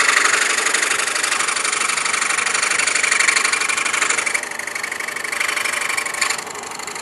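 DeWalt scroll saw running, its blade stroking rapidly up and down as it cuts into a stack of taped-together wood layers. The sound drops in level a little over four seconds in.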